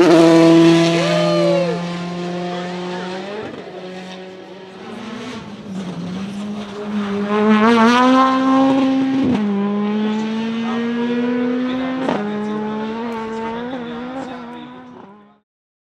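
Rally cars' engines at high revs as the cars pass one after another, the pitch climbing and then dropping sharply at each gear change. The sound fades out near the end.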